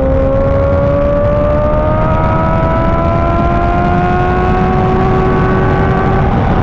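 Kawasaki ZX-6R's inline-four engine pulling in gear, its pitch climbing slowly and steadily as the bike gains speed, then dropping near the end at an upshift. A low wind rush runs under it.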